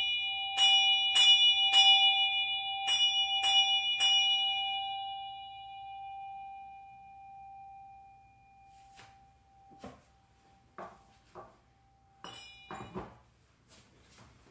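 Small hand-held bell struck in two sets of three quick strokes, about half a second apart, the ringing fading out over the next few seconds. This is the battery that marks the close of the ritual. A few light knocks and clicks follow near the end.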